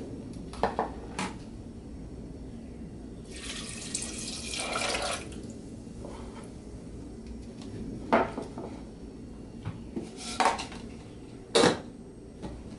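Liquid poured into a stainless steel saucepan for about two seconds, a few seconds in, between scattered clinks and knocks of kitchenware. A sharp metal clank near the end as the lid is set on the pan.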